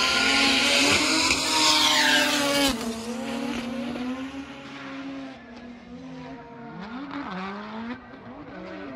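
Drift car running at high revs with its tyres screeching in a slide. At about three seconds in the sound drops suddenly to a quieter, farther-off engine revving up and down as the car drifts.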